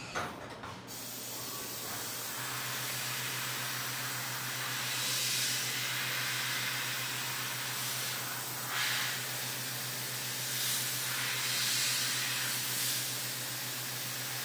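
CNC vertical mill chamfering an aluminium part with a 1/2-inch chamfer tool under flood coolant: a steady hiss of coolant spray and cutting, over a steady low hum from the direct-drive spindle at about 7,600 rpm. A short clatter in the first second, and the hiss swells briefly several times.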